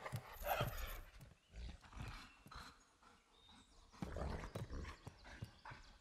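Sound effects of an animated wolf moving about: irregular soft paw thuds mixed with short breathy sounds.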